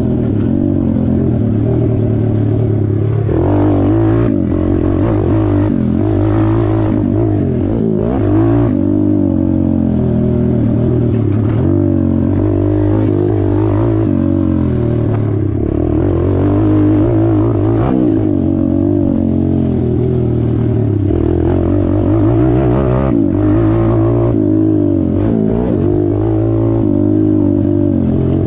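WPB 190 Beast pit bike's single-cylinder four-stroke engine being ridden hard, revving up and down over and over as the throttle is opened and closed and the gears change.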